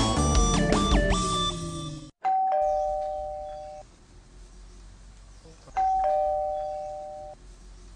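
A bright music jingle that cuts off about two seconds in, then a doorbell chiming ding-dong twice, a high note followed by a lower one each time, the two rings about three and a half seconds apart.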